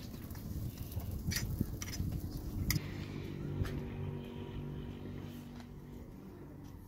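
A motor vehicle's engine running steadily, clearest from about three seconds in, with a few sharp clicks and taps over a low rumble.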